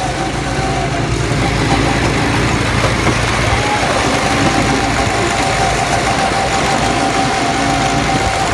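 Go-kart engines running as the karts drive around the track, a steady drone with a thin whine over it, heard from the driver's seat of one kart.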